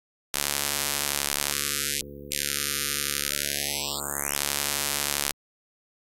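Computer-synthesized spectrogram-art sound, built so that its spectrogram draws the letter B: a loud, harsh hiss over many steady stacked tones, starting and stopping suddenly and lasting about five seconds. It dips briefly about two seconds in.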